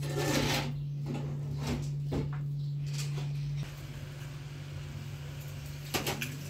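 Short crisp snaps and scrapes of bell peppers being cored and cut by hand with small knives, a few at a time, over a steady low hum that drops a little past halfway.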